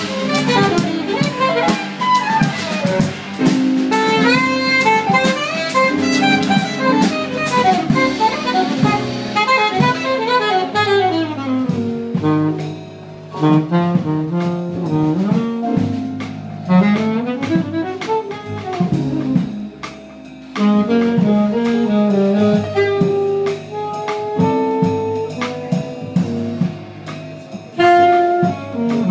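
Live jazz: a saxophone plays fast runs that rise and fall, over a drum kit and low bass notes.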